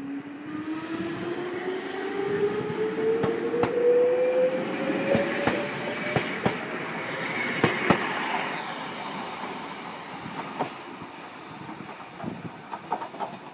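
Wakayama Electric Railway 2270-series electric train pulling away from a station: a motor whine rises steadily in pitch as it accelerates, with sharp clicks of the wheels over rail joints as the cars pass, then the sound fades as it draws away.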